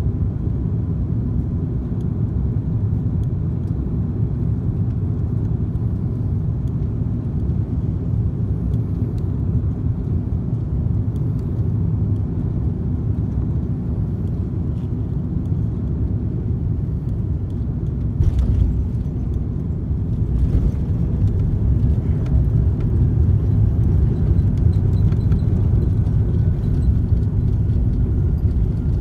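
Cabin roar of an Airbus A330-300 landing, heard from a seat behind the wing: steady engine and airflow noise on short final, a thump about two-thirds of the way through as the main wheels touch down, then the noise grows louder as the spoilers deploy and the engines spool up for braking on the rollout.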